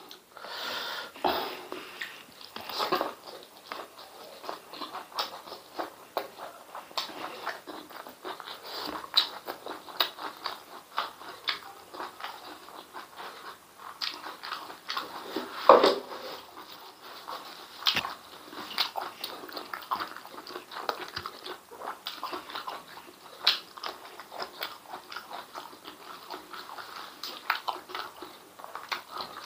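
Close-up wet chewing and lip-smacking of a person eating spicy stewed beef and chicken intestines with rice by hand: a steady run of short sticky smacks and clicks.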